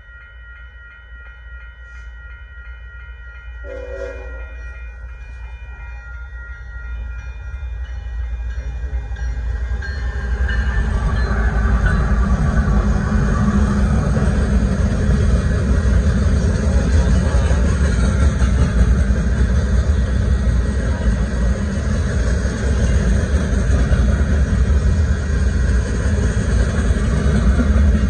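Railroad crossing signal bell ringing over a rising rumble as a freight train approaches. From about ten seconds in, loaded limestone hopper cars roll through the crossing with a loud, steady rumble and wheel noise that drowns the bell.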